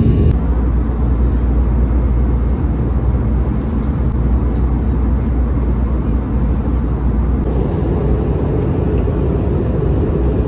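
Steady low rumble of a jet airliner's engines and rushing air, heard inside the passenger cabin in flight.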